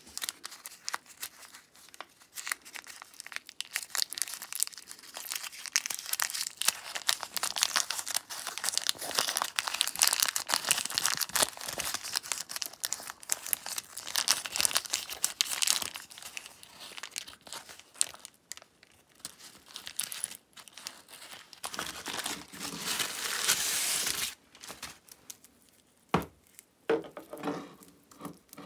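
Stiff, old yellowed wrapping paper crinkling and tearing as it is unfolded from around a saw chain, in long stretches of dense crackling. Near the end the crackling stops and a few sharp clicks are heard as the steel chain is handled.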